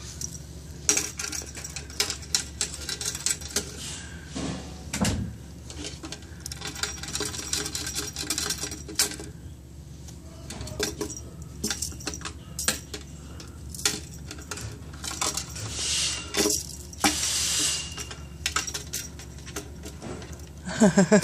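Scattered light clicks, taps and rustles of a cat-teaser wand's toy being flicked through grass and dry leaves and knocking against a plastic watering can while a cat paws at it. A short stretch of louder rustling comes about three quarters of the way through.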